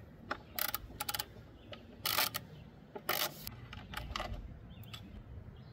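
Hand ratchet with an 8 mm socket on a short extension clicking in short, irregular runs as a small bolt is worked loose.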